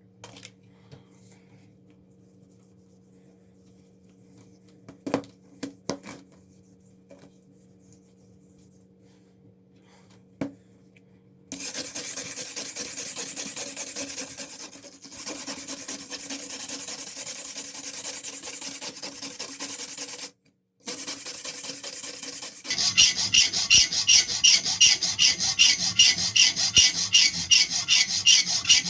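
Abrasive scraping on a steel knife blade, worked by hand to take off rust. A steady scraping runs for about ten seconds, then gives way to loud, even back-and-forth strokes, about three a second. Before the scraping there is a faint low hum with a few light clicks.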